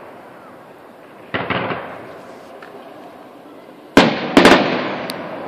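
Fireworks aerial shells bursting: a boom about a second in, then two loud sharp bangs in quick succession near the end, each trailing off in a rolling echo.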